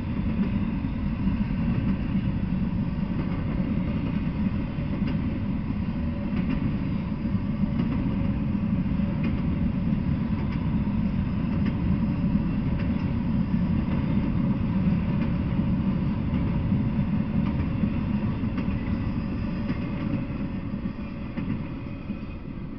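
Freight train of empty intermodal well cars rolling past: a steady low rumble of steel wheels on the rails with a few faint clicks, fading near the end as the last car goes by.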